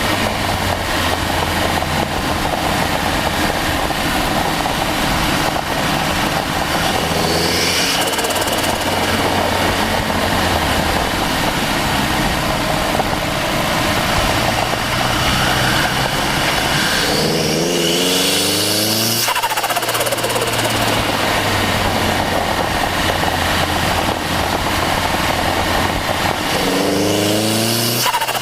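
Turbocharged Mazda MX-5 Miata four-cylinder engine pulling hard, picked up by a microphone mounted beside the turbo: the revs climb with a rising turbo spool whine and then drop away sharply, briefly about a quarter of the way in and in two long pulls that break off about two-thirds through and again at the very end.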